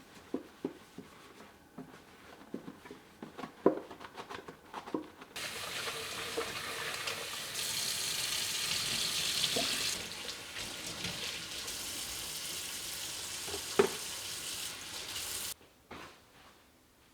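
Light clinks and knocks of kitchen things being handled, then a tap turned on with water running into a sink for about ten seconds before it is shut off suddenly.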